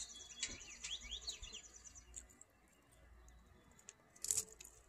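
Songbirds singing: a fast high trill together with several quick rising and falling whistled notes, fading after about two seconds. A brief sharp sound about four seconds in is the loudest moment.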